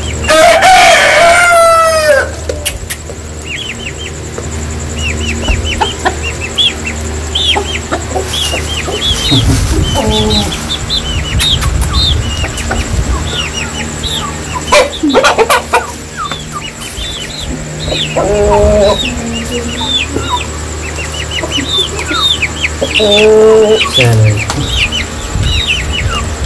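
Aseel chickens calling: a loud rooster crow lasting about two seconds at the start, then three shorter calls later on. Quick high peeps run throughout, over a steady low hum.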